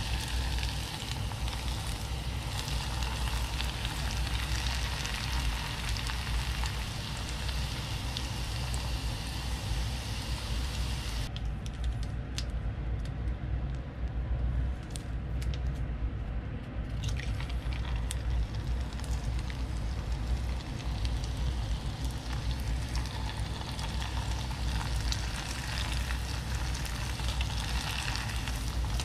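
Churro dough deep-frying in hot oil in a small pot, a steady sizzle and crackle over a low steady hum. The sizzle thins out for about five seconds in the middle, with a few sharp pops, then comes back.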